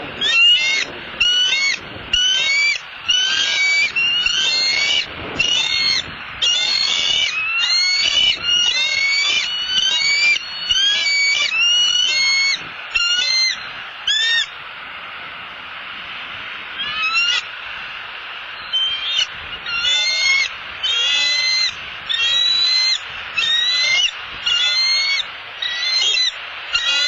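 Bald eagle calling its alarm at an intruder: a long series of short, high, piping notes, each dropping in pitch, about two a second. The calling breaks off for a couple of seconds about halfway through, then starts again.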